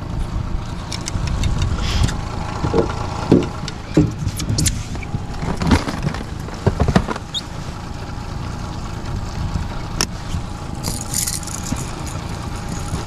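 Hard plastic tackle boxes knocking and clicking as a lid is lifted and a lure box opened and rummaged through. Behind it, the steady low rumble of the boat's outboard motor running at trolling speed.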